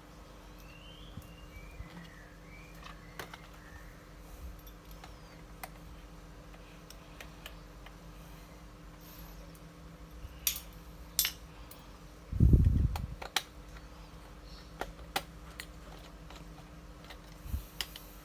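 Scattered sharp clicks and taps of small tools and screws on a Canon EOS 60D camera body being taken apart, with one dull thump about twelve seconds in.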